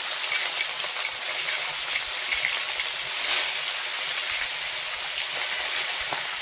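Pieces of tilapia frying in hot oil in an iron kadai: a steady sizzling hiss that swells briefly about three seconds in.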